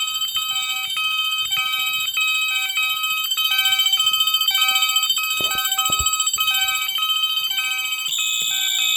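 Several electronic fire alarm horns and sounders on a 1989 Moose Z900 alarm panel's bell circuit sounding together: a steady shrill tone layered with a stepped multi-tone pattern that repeats about three times every two seconds. A couple of knocks come about halfway through, and a higher, louder tone joins near the end.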